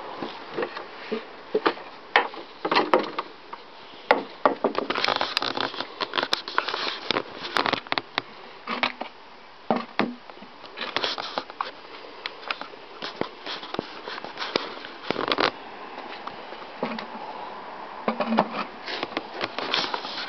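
Irregular rustling and crackling with scattered sharp clicks: handling noise on a handheld camera microphone as it is moved around.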